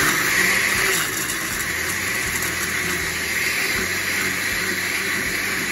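Oster glass-jar blender running at speed, puréeing tomatoes and chipotle chiles in adobo with a little water: a steady motor whir with liquid churning in the jar.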